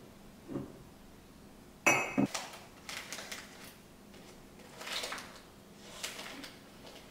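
White ceramic cups clinking together in a wooden drawer, with one sharp, ringing clink about two seconds in. After it come softer taps and rustles as tea-bag sachets are handled in a wooden organizer.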